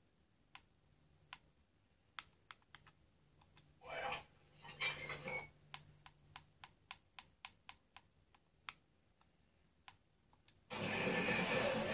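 A run of sharp button clicks at irregular spacing, some in quick succession, as paused video playback is skipped forward through the seek bar. Near the end the TV programme's sound cuts back in with music and voices.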